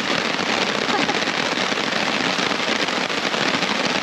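Heavy rain falling, a dense, steady crackle of drops striking a surface close by.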